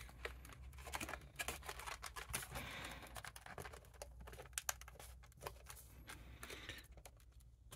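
A cardboard One Piece Card Game OP-05 booster box being opened by hand: its top flap is pried up and folded back, giving a run of faint light clicks, taps and rustles of card stock.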